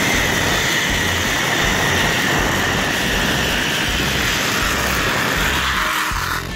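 Zip-line trolley running fast along a steel cable: a steady high whine that sinks slowly in pitch, over a rush of wind. It cuts off just before the end.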